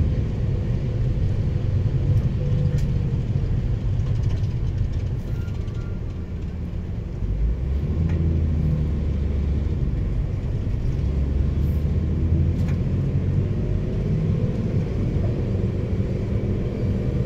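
Road vehicle heard from inside its cabin while driving: a steady low rumble of engine and tyres, growing heavier from about eight seconds in.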